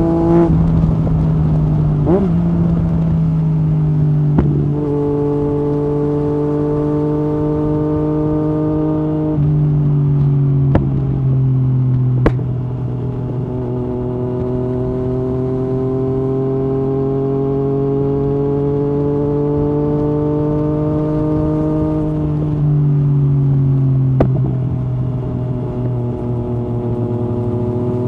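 Yamaha MT-09 SP's inline three-cylinder running through an Akrapovic exhaust at steady part throttle. The pitch climbs slowly and drops suddenly several times as it is shifted up through the gears, with a couple of sharp cracks about halfway through.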